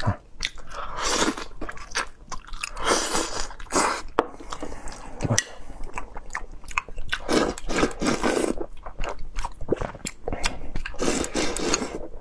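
Close-miked eating: a person biting and chewing a mouthful of crab meat and rice, with wet mouth sounds and scattered light clicks that come and go in uneven bursts.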